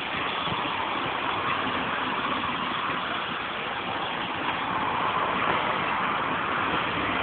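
Steady running noise of a train in motion, heard from the carriage window.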